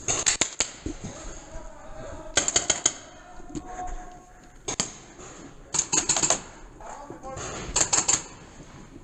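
Magfed paintball markers firing in short rapid strings of sharp snaps, about five volleys coming roughly every two seconds, ringing in a small indoor structure.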